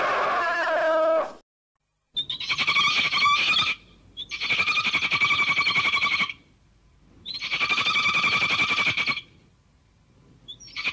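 Monster call sound effect for the kaiju Gabara: a fast-pulsing, trilling cry of about two seconds, repeated with short gaps, four times in all. A longer call tails off about a second in.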